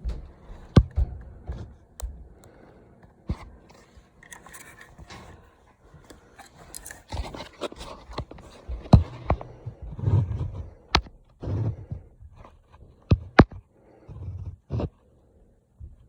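Hand work on a furnace's ECM blower motor and its module: irregular clicks, knocks and scrapes of tools and metal parts being handled, with a patch of scraping midway and several sharp clicks and dull thuds in the second half.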